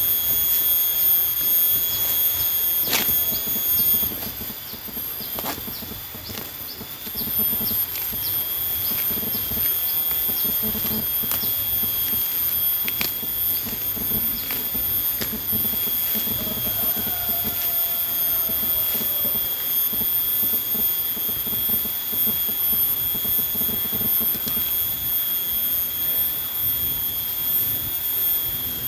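Steady high-pitched drone of insects, with rustling and a few snaps as grass and weeds are pulled up by hand around a young durian tree.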